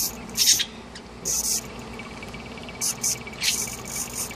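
Small hobby servo motors whirring in short high-pitched bursts, about five of them, as they are swung back and forth by joystick control.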